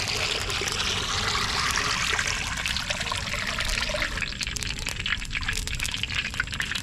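Sunflower oil being poured into a heated kadai: a steady pouring trickle that eases a little after about four seconds.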